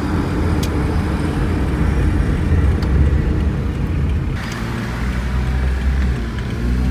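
Car driving along an open road, heard from inside the cabin: a steady low engine and road rumble with a hiss of tyre noise.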